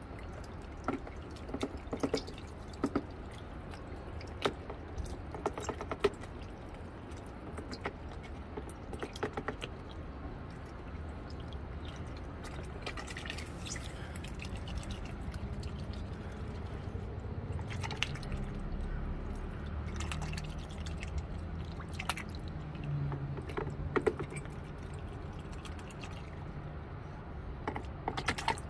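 White domestic duck dabbling its bill in a shallow tub of water as it catches and swallows live mud loaches: irregular small splashes, drips and sharp bill clicks, over a low background rumble.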